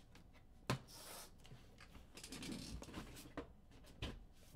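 Trading cards being handled quietly: two sharp taps, about a second in and near the end, with soft rubbing and rustling between them.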